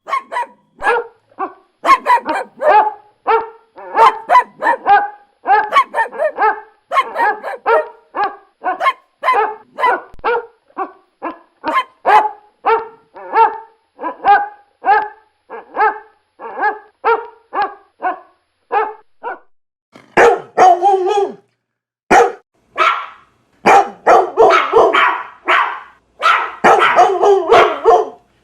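A dog barking over and over, about two barks a second, then louder, closer-packed runs of barking in the last third.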